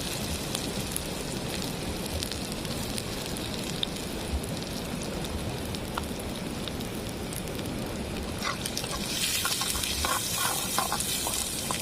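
Chopped onion and green chillies sizzling in hot oil with mustard seeds in a pan, a steady sizzle with scattered pops. In the last few seconds the sizzle grows brighter, with more clicks and crackles.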